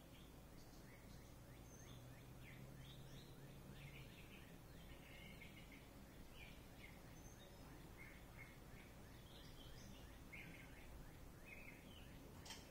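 Near silence with faint, scattered bird chirps throughout, and a faint low hum that stops about four seconds in.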